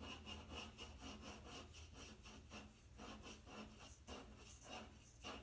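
Paper blending stump rubbing over white Conté on black paper in quick, faint back-and-forth strokes, smoothing the white tone.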